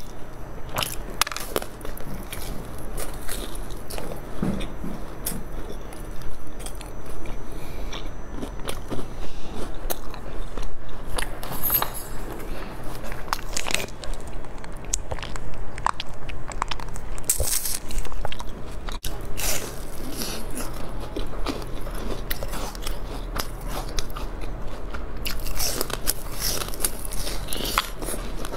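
Close-miked eating: a person biting, crunching and chewing food, with many small wet clicks and crackles.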